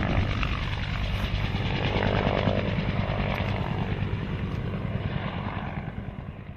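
Helicopter running, its rotor and engine making a steady noise with a rapid low chop, fading near the end.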